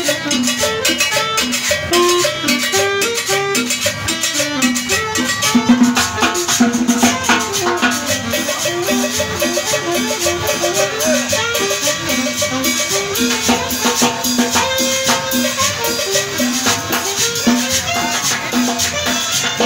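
Live Latin dance music in a salsa style, played on percussion. A metal güira scraper keeps a dense, steady rhythm over hand drums, with short stepping pitched notes underneath.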